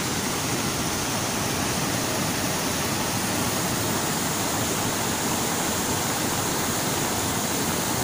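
Hill river in full flood after heavy rain, its muddy, turbulent water rushing past in a steady, unbroken noise.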